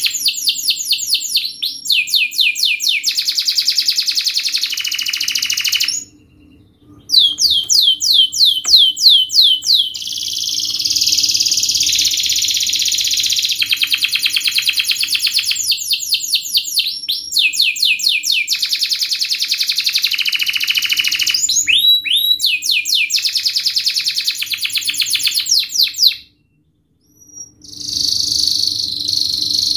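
Domestic canary singing a long, fast song of rapid trills and runs of quick sweeping notes, broken by a brief pause about six seconds in and another a few seconds before the end.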